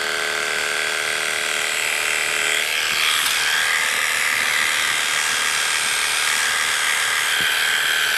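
Electric dog-grooming clipper with a wide #7 blade running in a steady hum as it cuts the cheek and neck coat of an American cocker spaniel; the hum shifts slightly about three seconds in.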